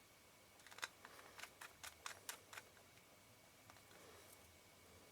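A quick run of about ten faint, light clicks and taps from small metal lens parts being fitted and worked by hand, stopping after about two and a half seconds, then only faint handling.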